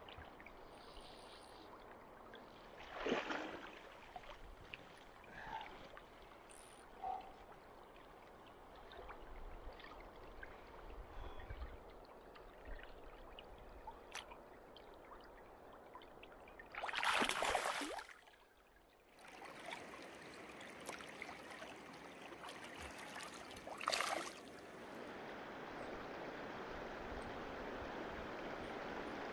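Shallow river flowing steadily over stones, with a few brief louder bursts of noise, the loudest about halfway through. The water grows louder near the end.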